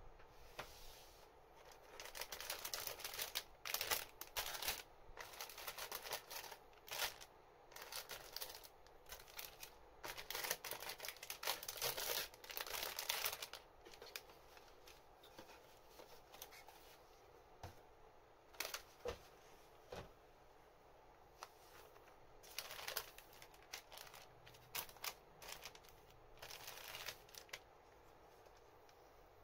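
Clear plastic bags around plastic model kit runners crinkling and rustling as they are handled and lifted out of the box. The crinkling comes in a dense flurry during the first half, then in a few short, sparser rustles.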